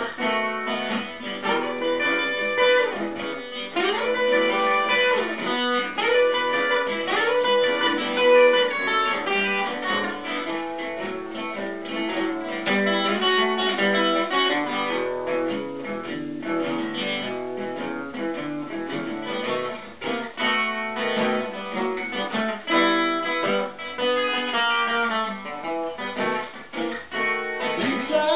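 Acoustic guitar playing a blues instrumental break, with a lead line of long notes that bend up and down over the rhythm.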